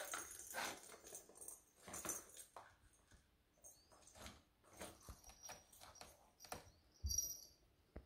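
Kitten playing with a plastic circular track ball toy: irregular clicks, knocks and rattles as it paws the toy and the ball rolls in the track, with a brief high ringing a little after seven seconds.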